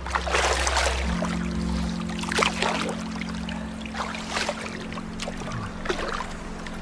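Film score of held low notes, with water splashing and lapping every second or two as a person moves in it.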